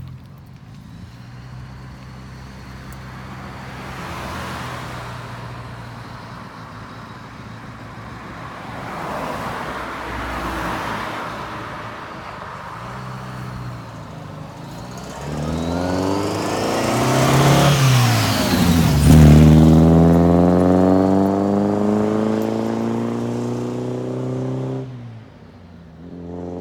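Morgan Plus 4 sports car driving by: the engine note rises as it accelerates, is loudest with a drop in pitch as the car passes, then falls steadily as it pulls away. The sound cuts off abruptly near the end.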